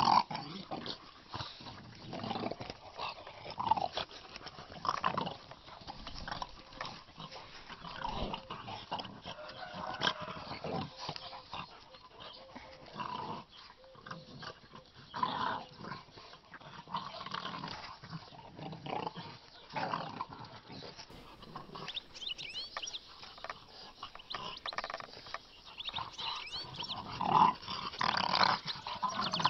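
Bear-coat shar pei puppies and a larger white dog play-fighting, growling amid scuffling, in irregular short bursts.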